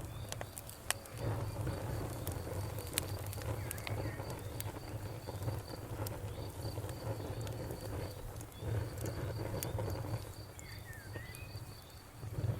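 Campfire crackling with scattered sharp pops over a steady low rumble, while a cricket chirps in an even, unbroken rhythm in the background.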